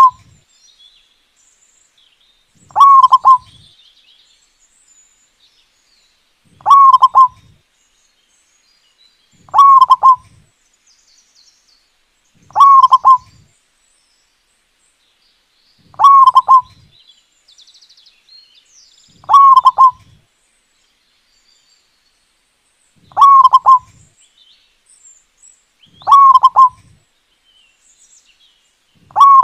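Zebra dove (perkutut) singing: a short burst of cooing notes repeated about every three seconds, with faint twittering of small birds between the coos.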